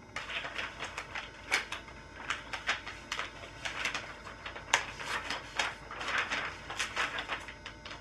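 Sheets of paper rustling, crinkling and being creased in quick, uneven handling, as when folding paper airplanes.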